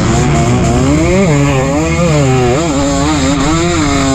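A 2023 KTM 250 SX's single-cylinder two-stroke engine at race pace, its revs rising and falling several times, with a quick run of dips and climbs in the second half.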